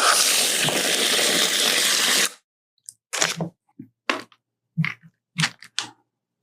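Chocolate wrapper crinkling and tearing for about two seconds, then about six short crunches of chocolate being bitten and chewed.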